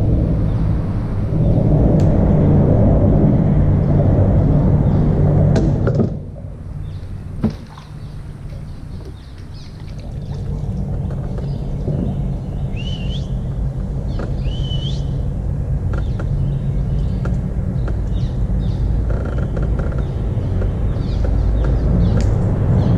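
Low rumble of traffic crossing the concrete highway bridge overhead. It drops away suddenly about six seconds in and builds back up from about ten seconds. A bird chirps twice in the quieter middle stretch.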